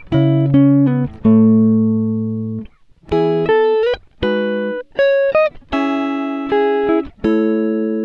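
Background music: a guitar playing a slow melody of single notes that each ring out and fade, a few bent in pitch near the middle.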